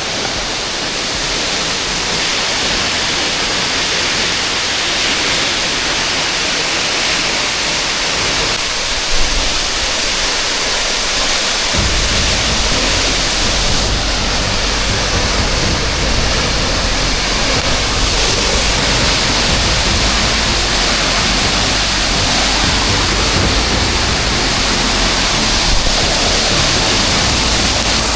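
Steady rush of water falling at a waterfall.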